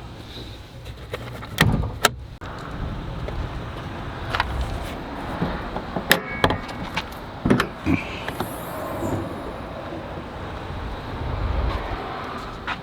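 A handful of sharp clicks and knocks from work at a pickup truck's engine bay, over a steady low outdoor background hum.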